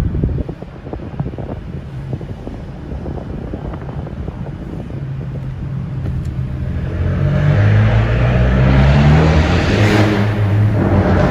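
Car engine driving up through a concrete parking garage: quiet at first, then accelerating from about five seconds in, the pitch rising and loudest near the end.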